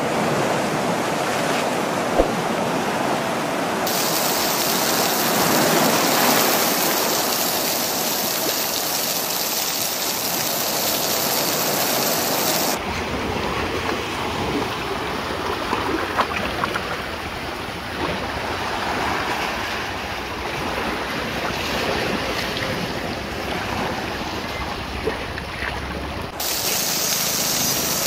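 Sea water lapping on a rocky shore: a steady wash of water noise, with a low wind rumble on the microphone through the middle stretch.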